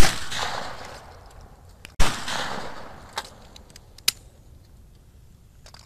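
Two shotgun shots about two seconds apart, the first right at the start and louder, each followed by a rolling echo that dies away over about a second. Two brief sharp clicks follow later.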